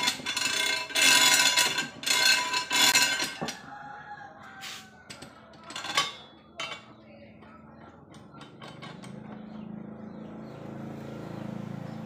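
Steel parts of a homemade rebar bar clamp clinking and knocking as it is handled and its screw turned, with a few sharp metal knocks around the middle and a low steady hum in the second half.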